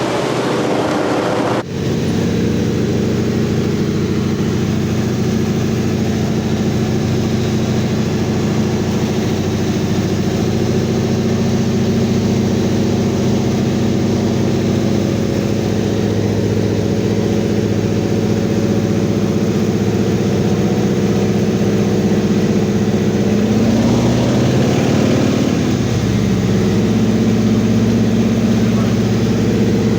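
Antonov An-2's nine-cylinder radial engine droning steadily, heard from inside the cabin in flight. The engine note dips and wavers briefly about three-quarters of the way through.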